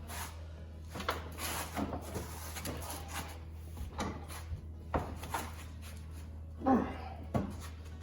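Intermittent clicks, knocks and creaks of a long wrench straining on a Ford 8.8 pinion nut as it is torqued down to crush the pinion crush sleeve, with a short grunt of effort about two-thirds through, over a steady low hum.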